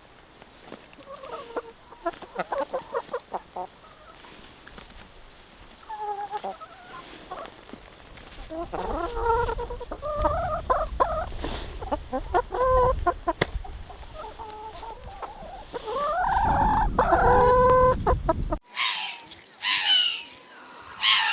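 Chickens clucking in short repeated calls, with a longer drawn-out call near the end. The sound then cuts to a different, higher-pitched animal call.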